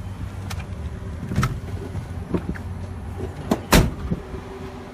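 Vehicle engine idling steadily, with knocks and clunks as someone climbs out of a pickup truck, and the door shut with a loud thump about three-quarters of the way through.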